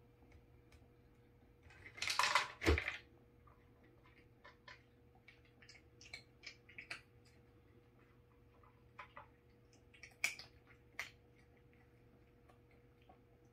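Dry dog kibble rattling out of a gumball-style dispenser into its plastic tray as a cat works the lever: a clattering burst about two seconds in, ending in a knock. After it come scattered faint clicks and crunches of the cat eating the kibble from the tray.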